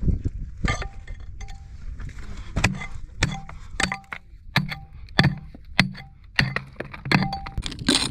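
Steel pickaxe striking rock again and again: about a dozen sharp metallic clinks, one every half second to second, each with a brief ring.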